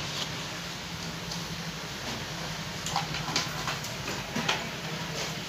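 A few light knocks and clicks from hands working on the opened TV's chassis and boards, over a steady low hum and hiss.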